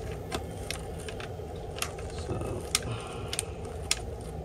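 Scattered, irregular sharp metallic clicks of a hand ratchet and tools working a 10 mm bolt on a B-series transmission case, over a steady low hum.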